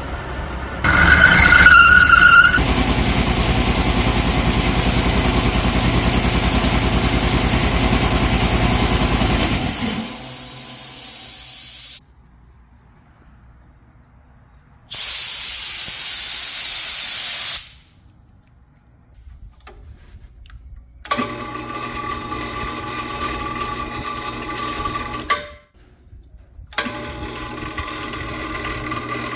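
A run of separate industrial machine sounds: a brief high squeal, a long stretch of loud, rough machine noise with a low rhythmic pulse, a short burst of hissing like air or steam blowing off, then a machine humming with steady tones that cuts out briefly and starts again.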